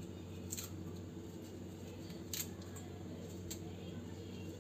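Fresh mint leaves being plucked from their stems by hand: faint snapping and rustling, with a couple of soft clicks about half a second and two and a half seconds in, over a low steady hum.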